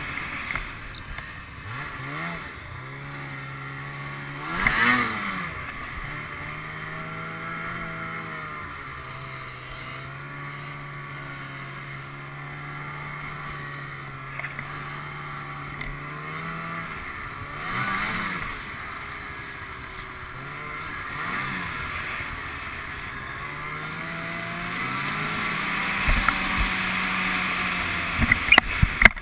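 Ski-Doo snowmobile engine running under way, revving up and dropping back several times, with a few sharp knocks near the end.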